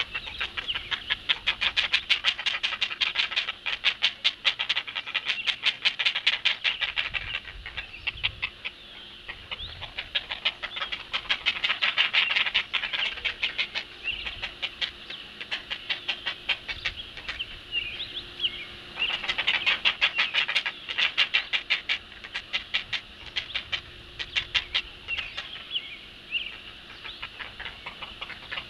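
Great blue heron chicks begging at the nest: rapid, loud ticking calls, many per second, in several bouts as they grab at the adult's bill for food.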